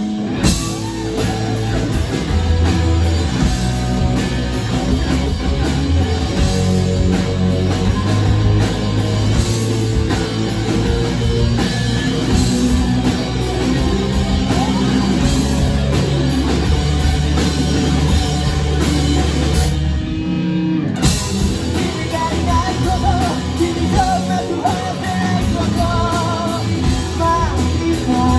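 Live rock band playing loud: distorted electric guitars, bass and drum kit with a lead vocal. About two-thirds of the way through, the cymbals and low end drop out for about a second in a short break before the full band comes back in.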